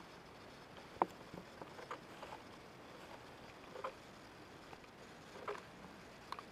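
Newborn baby hiccuping: short, sudden hiccups roughly every two seconds, four in all, the first, about a second in, the loudest.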